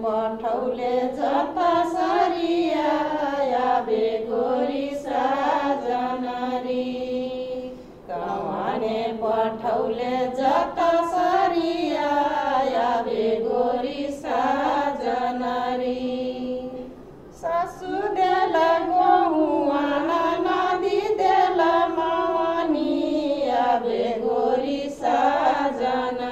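A woman singing a Tharu Jitiya folk song, a slow, wavering melody in long phrases of about eight seconds with short breaths between them.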